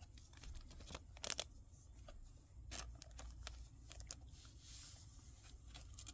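Faint handling of Pokémon trading cards and their foil pack wrappers: light rustling with a scattering of small clicks and snaps.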